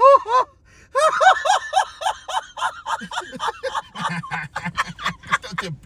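A man laughing hard in rapid high-pitched bursts, about five a second. Near the end they give way to lower, deeper laughing pulses.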